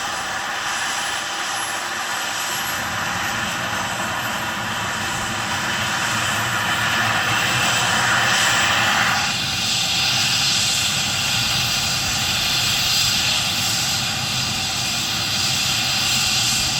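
MD 900 Explorer helicopter's twin turbine engines and rotor running up for take-off, growing louder, with a thin high turbine whine rising in pitch. About halfway through the sound shifts toward a higher, hissier rush.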